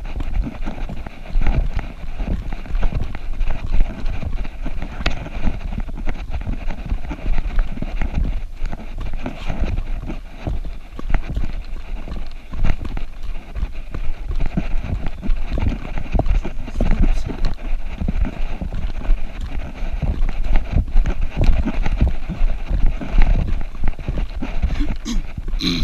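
A trail runner's footfalls thudding in a quick, uneven rhythm on a dirt forest trail, with the camera jolting along and wind rumbling on the microphone.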